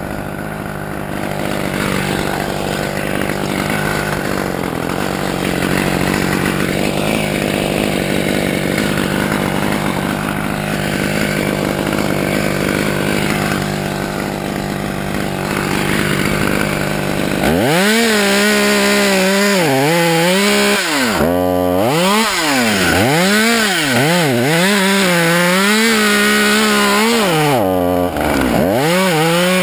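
Husqvarna chainsaw running steadily at idle, then from about 17 seconds in revved over and over, its pitch rising and falling.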